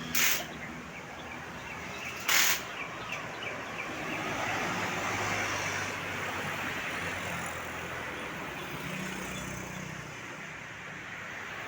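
Road traffic: a large vehicle, likely a bus, passing, its engine and tyre noise swelling about four seconds in and slowly easing off. Two short sharp hisses come near the start, about two seconds apart.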